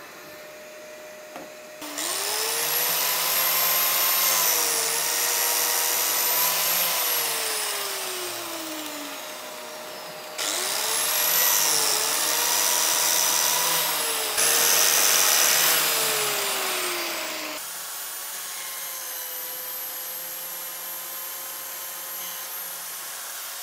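Biscuit joiner (flat-dowel cutter) running and plunging slots into MDF, its motor whine sagging and recovering as the blade takes load, in two runs. A steady vacuum-type hum runs underneath, from the improvised dust extraction.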